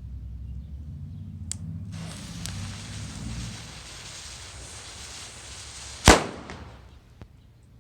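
Black Market Super Loud Cracker firecracker: a lit fuse hisses for about four seconds, then one sharp, loud bang about six seconds in with a short echo.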